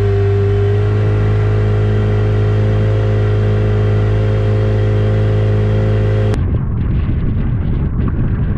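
Boat's outboard motor running at a steady speed, its pitch rising slightly about a second in and again a couple of seconds later. About six seconds in it cuts off abruptly, giving way to a rough rushing noise.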